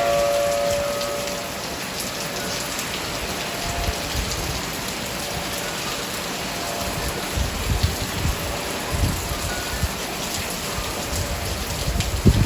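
Heavy rain falling steadily, with an outdoor tornado warning siren's steady wail in the background: it fades out after the first second or so, comes back faintly around the middle and returns at the end. A few low rumbles and thumps come through in the second half, the loudest near the end.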